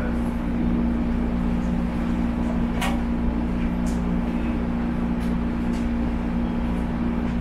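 Steady hum inside an MTR East Rail Line electric train carriage, with a sharp click about three seconds in.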